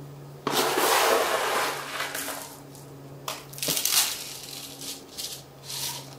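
Potting mix being scooped and poured into a plastic self-watering pot: a rough, crunching rustle starting about half a second in and lasting about two seconds, then a few shorter scrapes and rustles.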